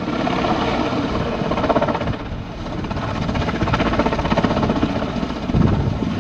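Helicopter turbine and main rotor running close by as it lifts off, with a rapid, even rotor beat over a steady engine noise that grows a little louder near the end as the aircraft tilts.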